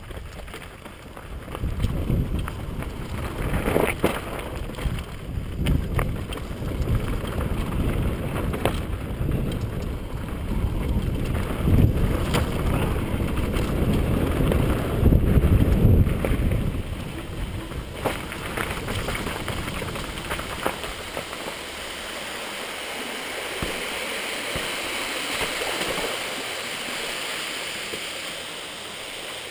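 Wind buffeting an action camera's microphone while a mountain bike rolls down a rough dirt singletrack, with frequent knocks and rattles from the bike going over rocks and roots. It is loudest in the middle and eases off in the last third.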